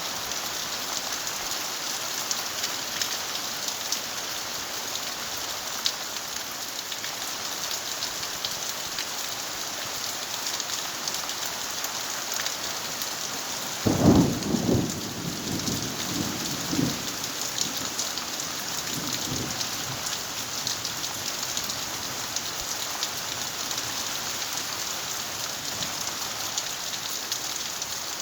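Rain falling steadily, a constant hiss with individual drops ticking, with a rumble of thunder about halfway through that dies away over a few seconds.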